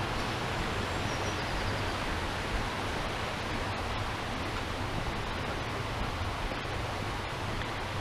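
Steady, even rushing of flowing water, as from a stream running nearby.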